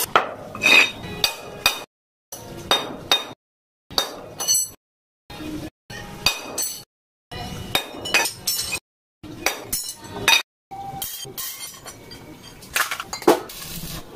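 Steel pieces clinking and knocking as they are handled and set down on concrete, each hit ringing briefly with a high metallic tone. The clinks come in short clusters broken by several abrupt silences.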